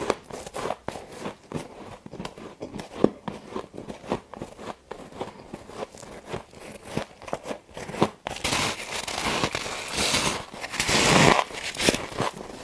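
Freezer frost being bitten and crunched close to the microphone: scattered crisp crackles, then a longer, louder stretch of crunching from about eight seconds in until shortly before the end.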